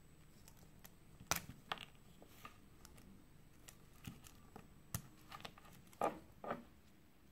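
Scattered clicks and taps of a white ABS plastic fidget spinner being handled, its snap-on plastic bearing caps pried off and set down on the table. The loudest clicks come about a second in and a pair near the end.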